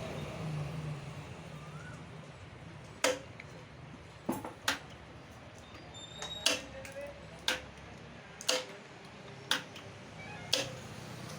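A series of sharp clicks, each with a short ring, about one a second from about three seconds in, over a low steady hum.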